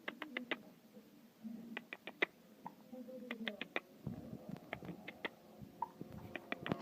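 Short runs of quick, sharp clicks, three or four at a time, repeated about every one to one and a half seconds, with faint soft low sounds between.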